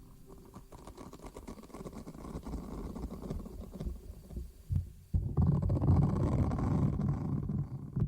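Close-miked ASMR rubbing and rustling: fine crackles that slowly grow louder, then from about five seconds in a suddenly louder, denser rubbing.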